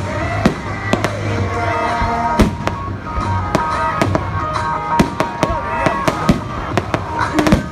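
Aerial fireworks shells bursting in quick succession, a dozen or so sharp bangs at irregular intervals, with music playing underneath.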